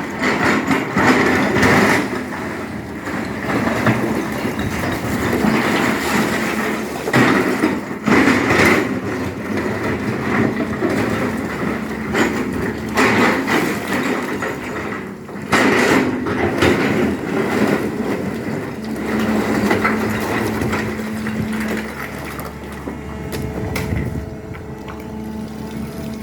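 SANY excavator running under load while digging, with repeated knocks and crunches as the bucket scrapes and breaks through earth and rock.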